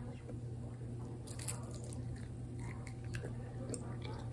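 A person biting into and chewing a honey garlic chicken wing, with quiet wet chewing and a few crisp crunches about a second and a half in.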